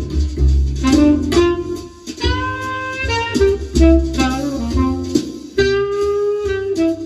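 Recorded jazz with a saxophone carrying the melody over a steady bass line, played through vintage Holimar 3/8 loudspeakers driven by a NAD 304 amplifier and heard in the room.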